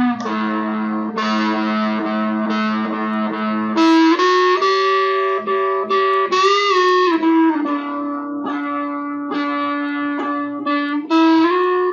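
Electric guitar playing a rock lead line of long held notes. It steps up in pitch about four seconds in, bends a note up and back down midway, and wavers in pitch again near the end.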